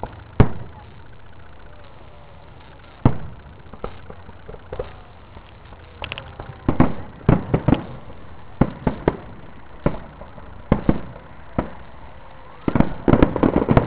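Aerial firework shells bursting with sharp bangs: single bangs a few seconds apart at first, coming more often from about halfway, then a rapid run of bangs near the end.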